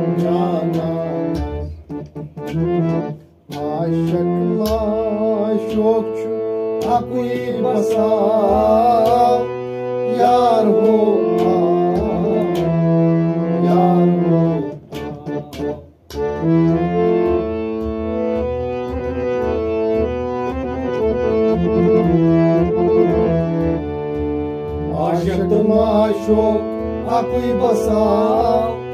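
Harmonium playing a melody over sustained reed notes, accompanied by a clay pot drum struck by hand in a steady rhythm. The music breaks off briefly twice, then runs on with an even beat of about four or five strokes a second.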